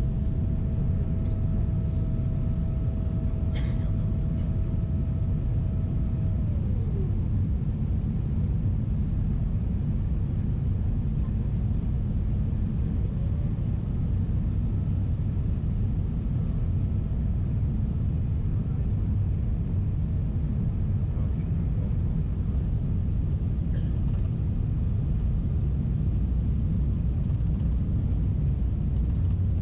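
Steady low rumble of a Boeing 777-300ER's cabin in flight. A faint steady tone slides down in pitch about seven seconds in, and there is a single short click near four seconds.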